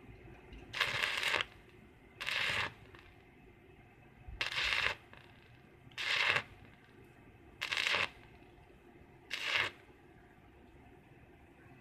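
Stick arc welding with a small portable inverter welder: six short bursts of arc crackle, each about half a second long, a second or two apart, as the electrode is struck on the metal again and again.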